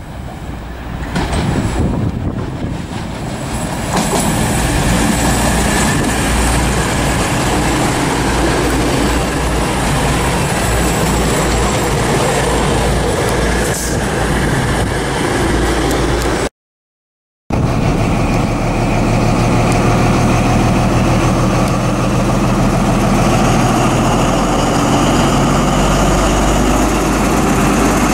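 An East Midlands Trains Class 222 Meridian diesel unit approaches and runs along the platform, its engines and wheels on the rails growing louder over the first few seconds. After a short break, a Class 43 HST power car's diesel engine runs at the platform with a steady low hum.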